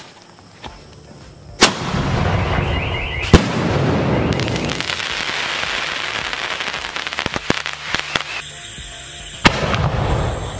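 Fancy pipe aerial fireworks going off: sharp bangs about a second and a half in, again about three and a half seconds in and once more near the end, with a long spell of dense crackling between them.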